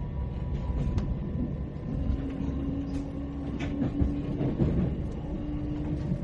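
Ambience inside a moving train carriage: a steady low rumble with a few scattered sharp clicks. A faint steady hum comes in about two seconds in.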